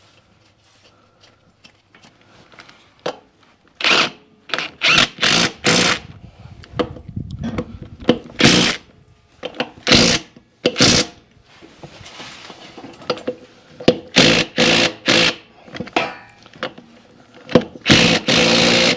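A handheld power tool running lug nuts onto a truck wheel's studs in short bursts. There are about a dozen bursts in clusters of two to four, with metal clatter between them.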